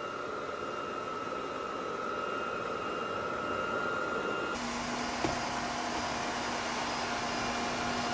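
Roborock Dyad Pro cordless wet-dry vacuum-mop running steadily with a high whine. About halfway through, the sound switches abruptly to the Tineco Floor One S5 wet-dry vacuum running, with a lower hum, and there is a single click.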